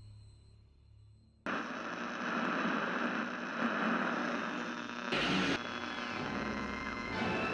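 Faint low hum, then about a second and a half in a loud hiss of television-style static cuts in suddenly and runs on, with a brief louder surge of noise about five seconds in.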